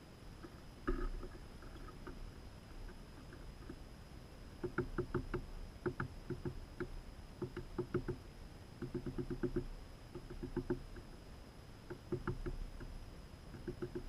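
A bird pecking: quick, sharp taps in short bursts of several at a time, with brief pauses between bursts and a single louder tap about a second in.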